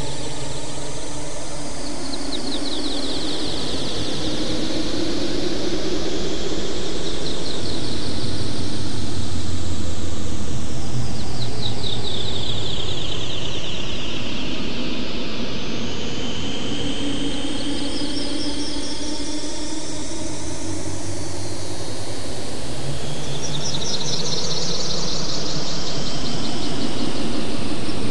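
Synthesized noise texture made in SuperCollider: a dense, steady hiss whose bright high and low bands sweep slowly up and down over several seconds, like a filter being swept, swelling in loudness about a third of the way in and again near the end.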